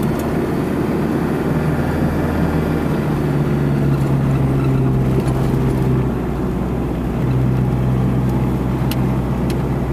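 A truck's engine and road noise while driving at a steady speed, a continuous low drone whose pitch shifts slightly a couple of times.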